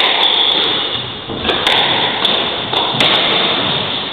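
Squash rally: a string of sharp knocks as the ball is struck by rackets and slams into the court walls, several in a few seconds at an uneven pace.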